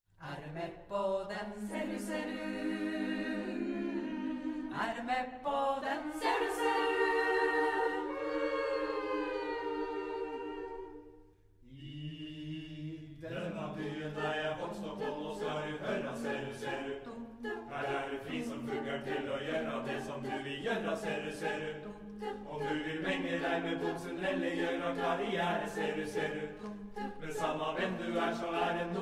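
Choir singing a cappella in Norwegian. Long held chords come first, then a brief pause about eleven seconds in, then a quicker, rhythmic verse.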